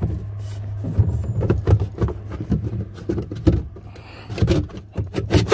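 Irregular knocks, bumps and rustling of handheld camera handling and a hand against the jet ski's hull and plastic tank, over a steady low hum.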